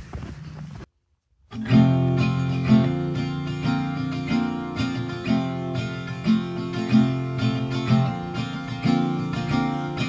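Background music led by strummed and plucked acoustic guitar, with a steady rhythm; it drops out for about half a second near the start, then comes back louder.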